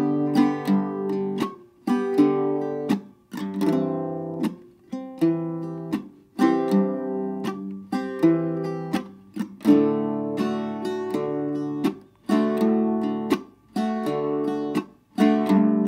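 Octave mandolin played as bluegrass rhythm: chords strummed with an alternating bass note and upstrokes, let ring briefly and then damped with the fretting fingers, a mix of open strumming and percussive chops. The ringing chords cut off short every second or two, with sharp chop clicks between.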